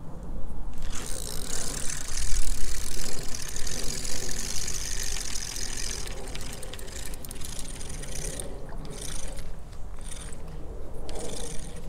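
Wind buffeting the microphone: a steady low rumble with gusts of hiss, strongest in the first half and coming and going afterwards.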